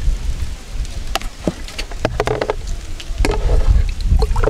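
Rice being washed: water poured from a plastic cup onto raw rice in an enamel bowl, with scattered light knocks and clicks of the cup and bowl, over a steady low rumble.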